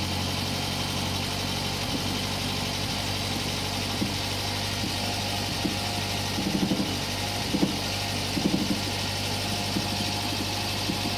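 1970 Renault 6's four-cylinder petrol engine idling steadily, with a few small knocks and muffled clunks partway through.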